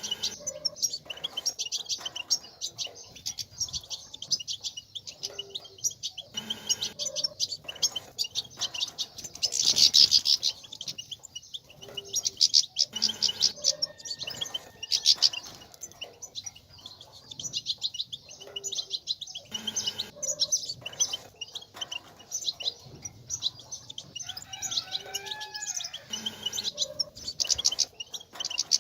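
European goldfinch twittering: a continuous run of rapid, high chirps and trills, loudest about a third of the way in.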